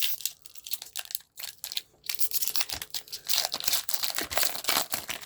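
A foil Pokémon booster pack wrapper being crinkled and torn open: a few scattered crackles at first, then dense crinkling and tearing from about two seconds in.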